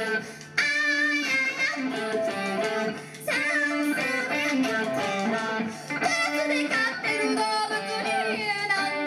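Rock band playing live, with electric guitars to the fore. The music drops out briefly twice, about half a second in and again about three seconds in, then comes straight back.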